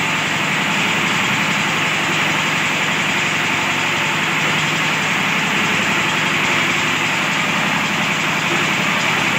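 Diesel engine driving a well-drilling rig, running steadily at an even speed with a fast, regular firing beat.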